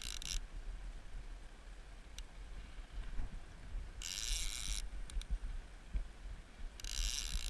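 Fishing reel buzzing in short bursts, about four seconds in and again about seven seconds in, while a hooked fish is being played. Under it runs a low rumble of wind on the microphone.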